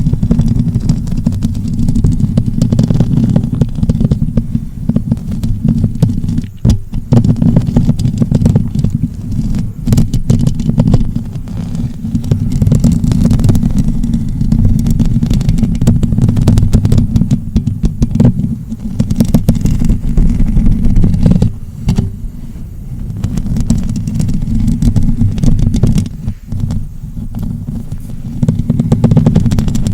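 Continuous low, muffled rubbing close against the microphone, dipping briefly a few times.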